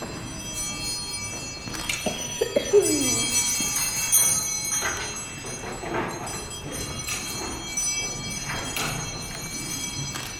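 Bells ringing, struck again roughly every second, their high tones hanging on and overlapping.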